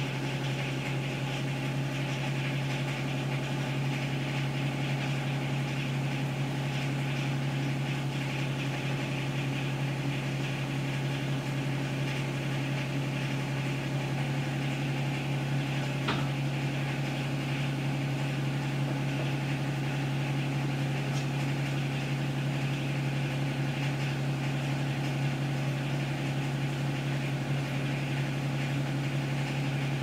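Yanmar SA424 compact tractor's three-cylinder diesel engine idling steadily, with one faint click about halfway through.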